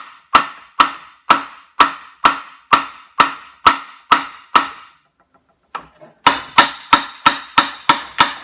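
Hammer blows ringing on metal, about two a second. They stop for about a second just past the middle, then resume faster, about three a second.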